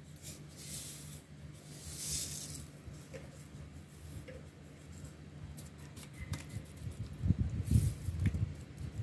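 Hands working a flattened round of egg-washed bread dough on a metal tray: brief soft rustling hisses in the first few seconds as the egg wash is rubbed in and seeds are scattered, then a run of dull low thumps about seven seconds in as fingertips press into the dough against the tray.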